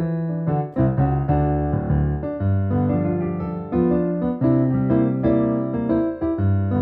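Background music: an electric piano playing a steady run of notes.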